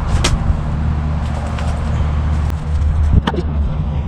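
Electric air pump running steadily with a low motor hum, inflating the middle seat of an inflatable raft, with a few light clicks and knocks over it.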